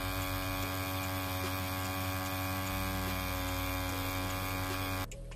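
Rhein EM145 wireless rotary tattoo pen running with a steady motor hum at its lowest recommended 6 volts while its 3-round liner needle lines into silicone practice skin. The hum cuts off suddenly near the end.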